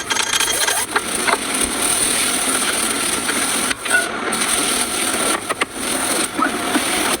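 Continuous scraping and rubbing noise with scattered clicks, which briefly drops away twice.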